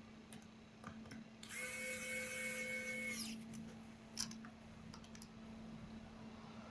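A small electric screwdriver whirs in one short run of under two seconds, a steady motor whine, with a few light clicks before and after it.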